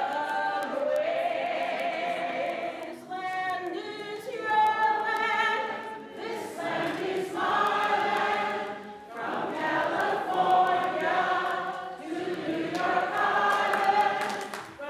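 Group singing a song together, led by two women, one of them strumming an acoustic guitar. The notes are held and come in phrases a few seconds long.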